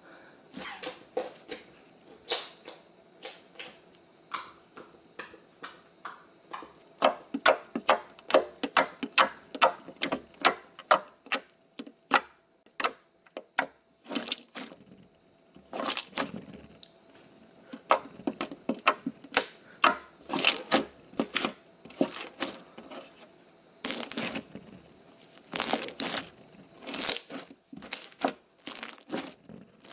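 Slime sound effects: wet clicking and popping as slime is squeezed, many quick pops in the first half and longer, louder squelches in the second.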